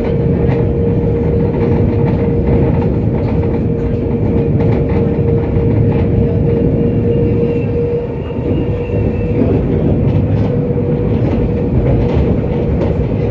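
Kaohsiung light rail tram running, heard from inside the car: a steady rumble of wheels on rail with a constant motor whine. A fainter, higher whine joins from about five seconds in to nine.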